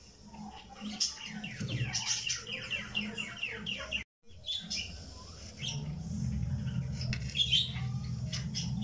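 Birds chirping, with a fast run of short repeated chirps about a second and a half in and scattered calls later, over a low steady hum. The sound cuts out completely for a moment about four seconds in.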